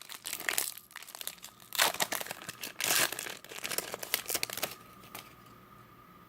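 Foil football card pack wrapper crinkling and tearing as it is ripped open, in irregular rustling bursts that stop about three-quarters of the way through.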